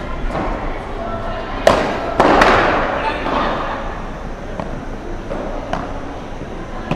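Padel rally heard from courtside: sharp pops of the ball off rackets and the court walls every second or so. After a cluster of hard hits about two seconds in, a burst of crowd noise swells and fades within a second or two.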